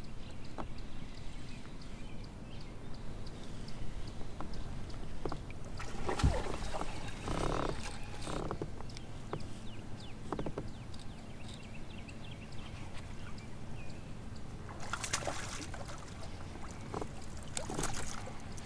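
Water splashing beside a sit-on-top fishing kayak as a landing net is dipped in and a fish is brought aboard, with scattered clicks and knocks of gear against the plastic hull. The splashing is loudest in two spells, about six seconds in and again around fifteen seconds in.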